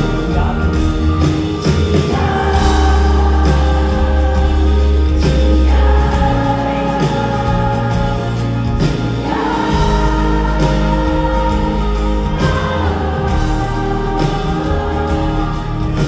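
Live pop-rock band with guitar, bass and drums playing loudly, with long held sung notes over it that sound like several voices, heard from within the audience.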